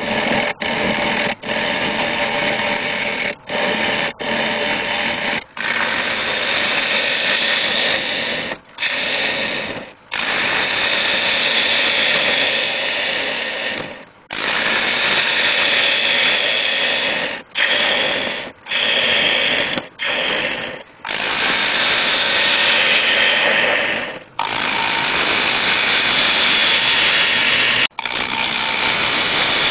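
Bowl gouge cutting into the inside of a spinning sycamore, oak and iroko glue-up bowl on a wood lathe, hollowing it out. It makes a loud, steady cutting noise, broken by about fourteen short gaps where the tool comes off the wood.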